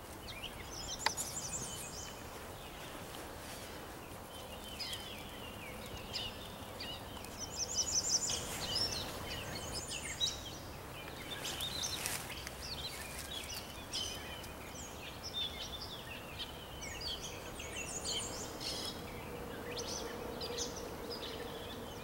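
Springtime songbirds singing and chirping, several birds at once with quick high trills, over a steady background rush of outdoor noise.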